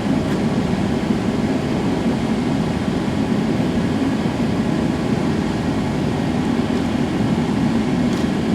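Gas forge burner running with a steady, even rushing noise, deepest in the low range.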